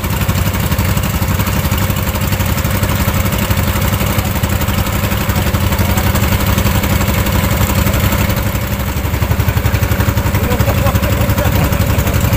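Small motorboat's engine running steadily at cruising speed, heard close up from on board, with the rush of the boat's wake through the water.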